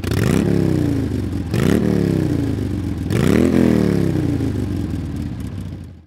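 A motor revving three times, each rev rising quickly in pitch and then falling away over about a second. It starts and cuts off abruptly.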